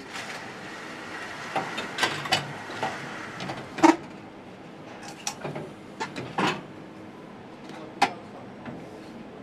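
Irregular knocks, clicks and clanks of parts and tools being handled during motorcycle assembly work, over a steady factory hum. There is a brief hiss in the first few seconds, and the loudest knock comes just before four seconds in.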